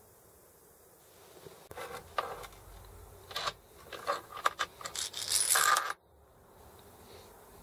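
Steel parts of a Sturmey-Archer S5C internal gear hub clinking and scraping against each other as they are slid along and off the hub axle. The clinks begin about a second and a half in, grow denser and louder, and cut off suddenly about six seconds in.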